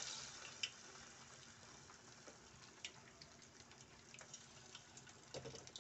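Faint hiss of hot oil sizzling around breaded, Cheeto-coated cheese sticks as they fry, with scattered small crackles and pops. It is a little louder at first, then settles to a steady low sizzle.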